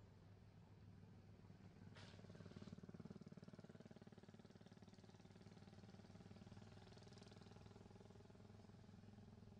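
Near silence: a faint steady low hum, with a faint engine-like drone coming in about two seconds in and slowly fading.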